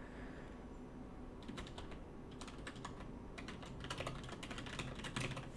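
Typing on a computer keyboard: a run of quick, irregular keystrokes that starts about a second and a half in.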